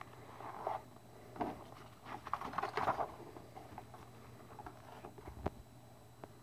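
Glossy paper inserts and a magazine being handled and shuffled in a cardboard box: rustling and sliding paper, busiest about two to three seconds in, with a single sharp tap about five and a half seconds in.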